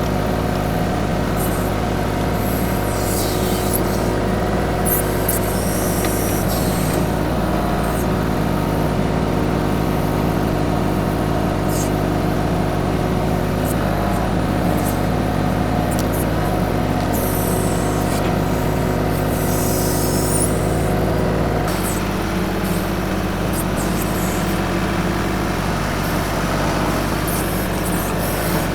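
TYM 2515H compact tractor's diesel engine running steadily while working the backhoe, its note shifting about three-quarters of the way through. Several brief high-pitched sounds rise over the engine.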